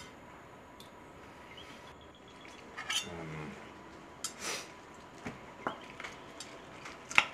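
Cutlery clinking and scraping on dinner plates during a meal: a few scattered light clinks, the sharpest one near the end.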